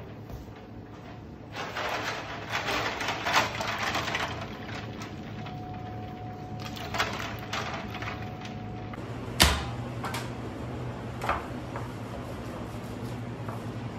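Irregular rustling and knocking as salt-cured swordfish loins are handled and rubbed in a steel pan of water, then a single sharp knock about nine and a half seconds in, over the steady low hum of a kitchen fan.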